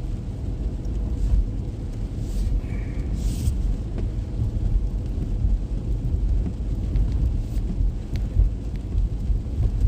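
Steady low rumble of a car driving on a rain-soaked road, heard from inside the car, with rain noise over it. Two brief hisses come about two and a half and three and a half seconds in.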